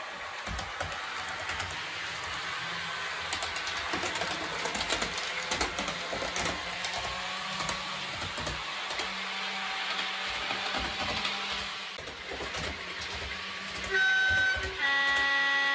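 Model trains running on a layout: a steady low hum with wheels clicking and rattling over the track joints. Near the end a train horn sounds twice, a short high note and then a longer lower one, a two-tone horn.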